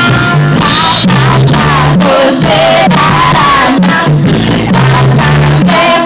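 Live band playing a reggae arrangement with a bouncing bass line, electric guitar, drums and vocals, loud and steady.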